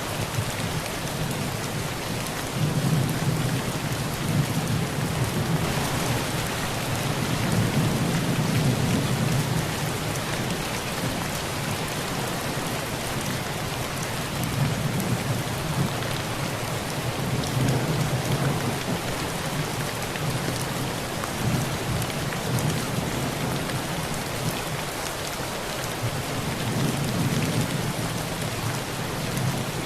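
Heavy rain pelting a tin roof as a steady dense patter, with low thunder rumbling in three long swells that build and fade.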